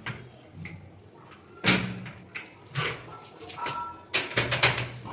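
Irregular hard knocks and clunks of plumbing work on a toilet setup, with a quick cluster of several near the end and a brief faint squeak just before it.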